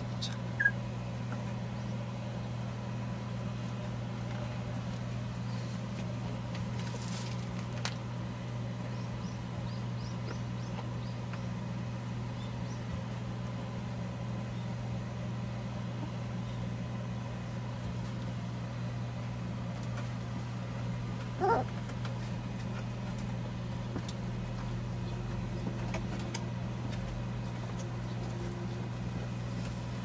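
Steady low hum of an electric fan, with one short squeak from a nursing puppy that slides up and back down, a little past two-thirds of the way through.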